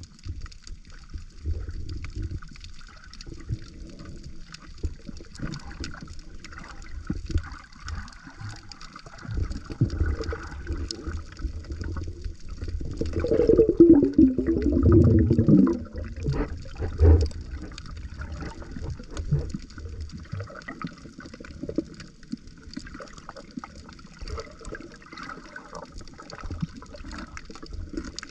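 Water sloshing and gurgling around the microphone. The loudest part comes about halfway through: a louder gurgle that falls in pitch.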